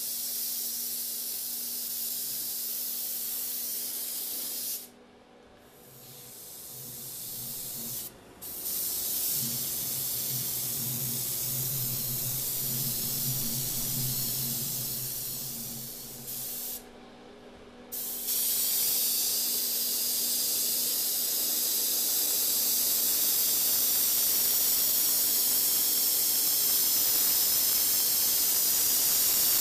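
Airbrush hissing as it sprays colour coats onto a guitar body. The spray stops briefly three times in the first twenty seconds, then runs on steadily and a little louder, with a low hum under part of it.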